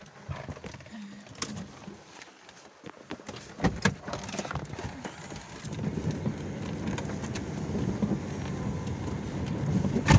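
Heavy rain on a car, heard from inside the cabin: a steady hiss with scattered sharp taps and knocks. A low rumble builds up about six seconds in.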